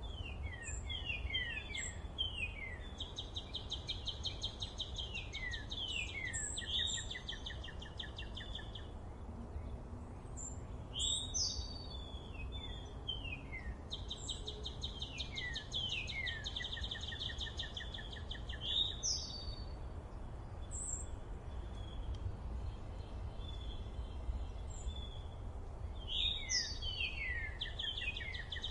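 A songbird singing the same phrase again and again, every few seconds: a run of quick downward-slurred notes and a fast trill, over a steady low rumble.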